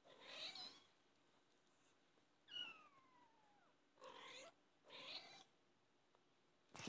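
British shorthair cats mewing: a few short, quiet calls spaced a second or two apart, one of them a longer mew that falls steadily in pitch about two and a half seconds in.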